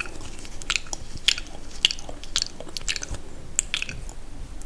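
Close-miked wet, sticky mouth sounds: irregular clicks and smacks of lips and tongue, two or three sharp ones a second.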